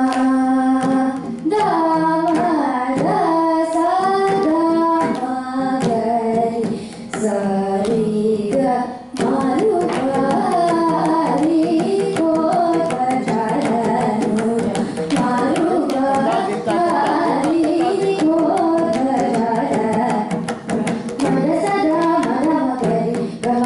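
A young girl sings a Carnatic vocal line with sustained, gliding notes, accompanied by a mridangam played with the hands in quick, steady strokes. Her voice dips briefly about nine seconds in.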